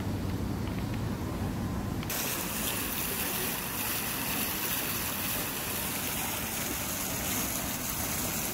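Large ornamental fountain's water jets rushing and splashing in a steady hiss, which comes in abruptly about two seconds in; before that, a low rumble.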